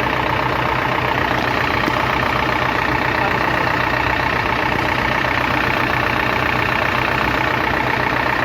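Kirloskar 4R1040 diesel engine of a JCB backhoe loader idling steadily. Smoke is blowing out of its oil dipstick hole, blow-by that the mechanic takes as a sign that the liners and compression rings are worn and the engine is probably finished.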